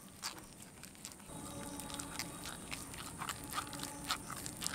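Hand rubbing soft mashed boiled sweet potato through a mesh strainer: faint, irregular squishing and scraping with small clicks.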